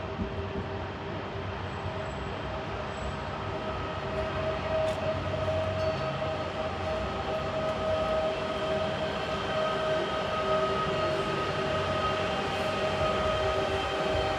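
Koleje Małopolskie EN64 electric multiple unit drawing in slowly. Its traction motors give a steady whine over the low rumble of the wheels on the rails, growing louder about four seconds in.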